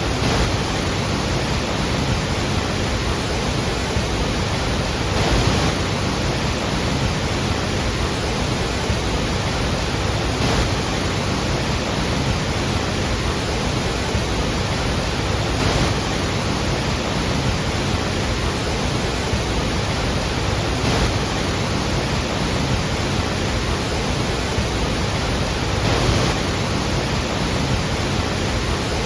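Iguazu Falls waterfall, a steady roar of falling water, with slight swells about every five seconds.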